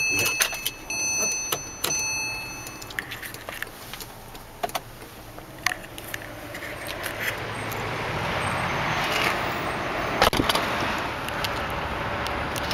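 A steady electronic warning chime sounds in the Porsche 911's cabin for the first few seconds, with the engine off. Clicks and key jingling follow as the key is handled. A car door thuds shut about ten seconds in, with outdoor noise around it.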